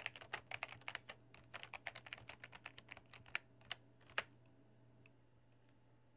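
Typing on a computer keyboard: a quick, uneven run of key clicks that stops about four seconds in on one louder keystroke. After that there is only a faint steady low hum.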